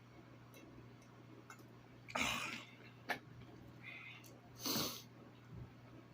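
A man's heavy breaths after a big meal: two loud breathy exhales, one about two seconds in and one near the end, with a single sharp mouth click between them.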